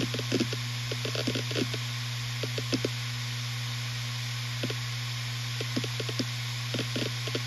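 Western Digital RE 4 TB (WD4000FYYZ) five-platter 7200 RPM hard drive spinning with a steady hum, overlaid with irregular clusters of short clicks from the heads seeking. The clicks thin out for a couple of seconds in the middle and pick up again towards the end.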